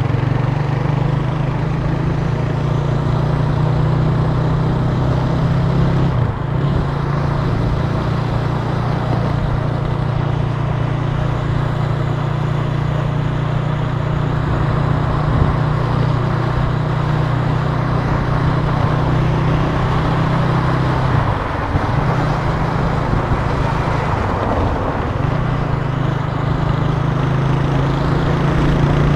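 Italika TC300 motorcycle engine running steadily under way, with wind and road noise. The engine note dips briefly three times: about six seconds in, and twice in the latter part.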